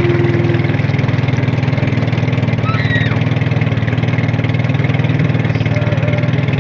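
Motorboat engine running steadily under way, a loud even drone with a fast regular pulse that holds the same speed throughout.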